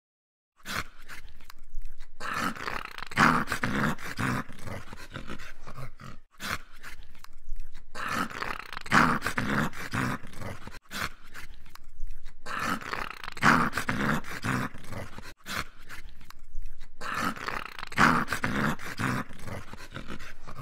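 Dog growling. The same stretch of a few seconds repeats about every four and a half seconds, four times over.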